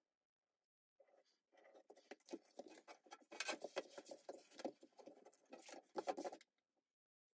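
Faint rubbing and patting of hands pressing and smoothing a leather strip down onto a leather panel. It starts about a second in and stops shortly before the end.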